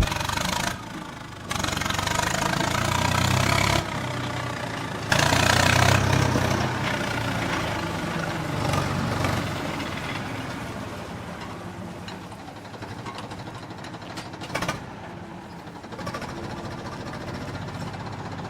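An engine running, heard in several spliced clips: the level jumps abruptly a few times in the first five seconds, then the sound slowly fades.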